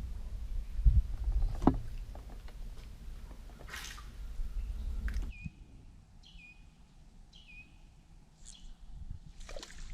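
A low rumble, like wind buffeting the microphone, with scattered knocks, which cuts off suddenly about five seconds in. Then a bird calls four or five times in short falling chirps, among a few faint clicks.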